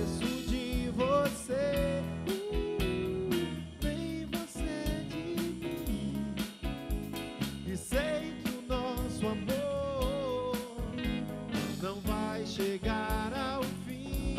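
Live band playing an instrumental passage: drum kit keeping a steady beat under electric bass and electric guitars, with a lead melody line of bent, sliding notes on top.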